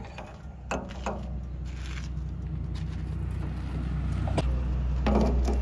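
A vehicle engine running with a steady low rumble that grows louder, with a few sharp knocks and a short rattle near the end.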